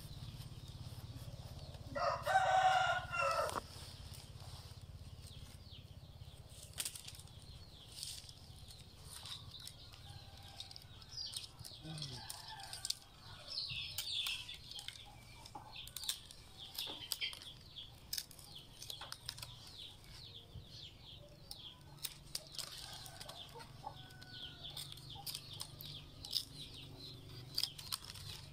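A rooster crows once about two seconds in, the loudest sound here. Throughout, rattan strands click and rustle as they are woven into the basket and trimmed, over a low steady hum.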